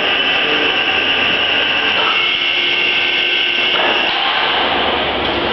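Steady mechanical whirring and hum of workshop machinery, with several steady tones that shift about two seconds in and again near four seconds; a low rumble joins near the end.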